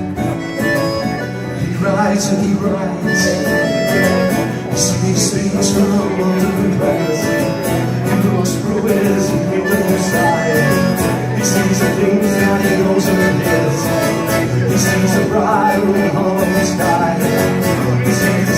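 Folk band playing live in a bluegrass-country style, with plucked strings over a steady beat.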